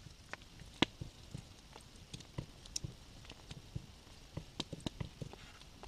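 A wood campfire crackling, with scattered irregular pops and clicks, one sharper pop about a second in, mixed with small clicks of a folding knife cutting meat on a metal camp plate.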